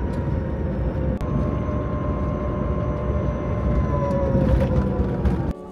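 Microlino electric microcar driving at about 50 km/h, heard from inside the cabin: steady road and tyre noise with a faint motor whine that slides down in pitch near the end. The sound cuts off abruptly just before the end.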